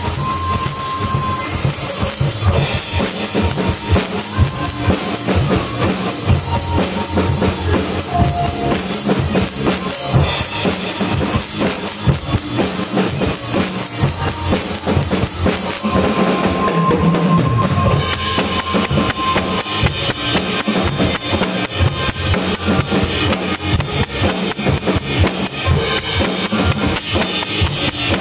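Acoustic drum kit played with sticks (kick, snare and cymbals) along to a recorded pop song. About two-thirds of the way through, the bright cymbal-like top end drops out for about two seconds before the full beat returns.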